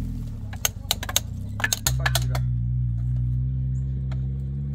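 Off-road vehicle's engine running at idle, with a run of sharp clicks over it in the first half. About two seconds in, the engine note settles into a steady idle.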